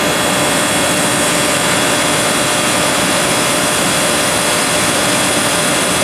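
Steady, loud hiss of an Rx11-flush canister discharging flush solvent through its rubber-tipped nozzle into a refrigerant line, cleaning acid and burnout contamination out of the system after a compressor burnout.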